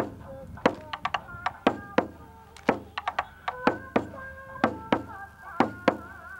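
Bon odori music: a taiko drum struck with sticks in an uneven rhythm of sharp beats, over the held melody line of an ondo tune.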